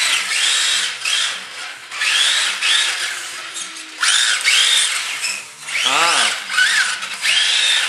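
Brushed 20-turn electric motors of Tamiya TT-01E radio-controlled drift cars whining as they rev up and back down in repeated bursts of about a second each, over the hiss of tyres sliding on a concrete floor. One car passes close about six seconds in, with a lower tone that dips and rises.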